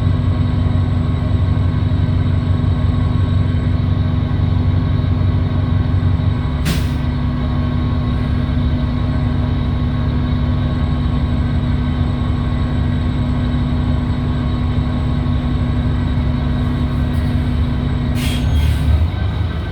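Transit bus engine and drivetrain running, heard from inside the cabin as a steady low drone with several steady tones over it; the uploader calls it a weird engine noise. A short hiss comes about 7 s in and another near the end, when the drone's pitch changes.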